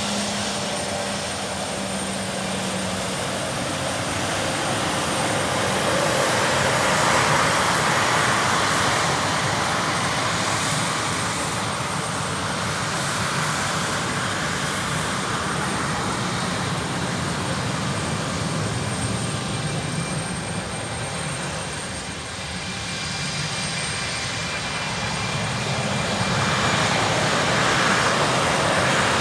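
Embraer E190 airliner's twin GE CF34 turbofan engines at takeoff thrust: a steady jet rumble and hiss with a thin high whine, growing louder about a quarter of the way in and again near the end.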